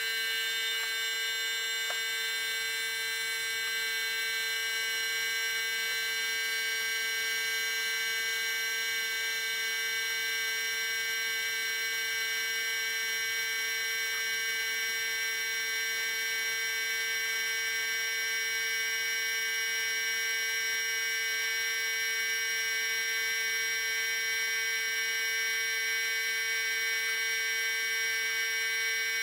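Steady electrical hum made of several fixed pitches, unchanging in level.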